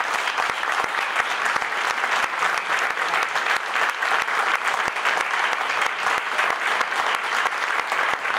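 Audience applauding: many hands clapping together, steady and fairly loud throughout.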